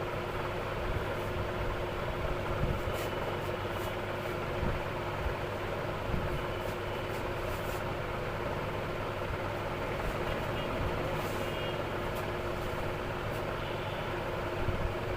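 Steady low rumble with a constant hum, like an idling engine or traffic, and a few faint short clicks over it.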